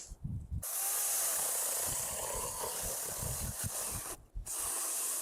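Cordless electric chainsaw cutting through wood, its chain making a steady hiss. The hiss breaks off abruptly about four seconds in and then resumes.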